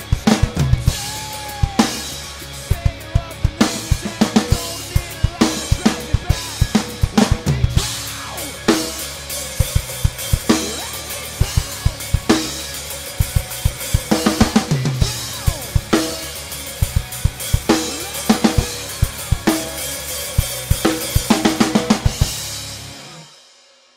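Backing music with a driving drum-kit beat of bass drum, snare and cymbals, fading out near the end.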